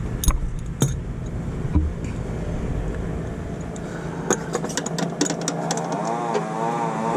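A hand wrench clinks against metal a few times while an AC compressor mounting bolt is worked loose, over a steady low hum.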